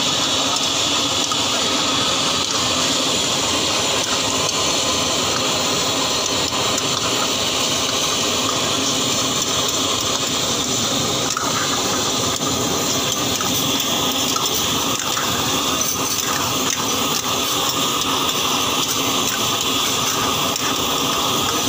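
Prawn karahi sizzling and bubbling hard in woks over gas burners, a loud, steady hiss, with a ladle stirring through it.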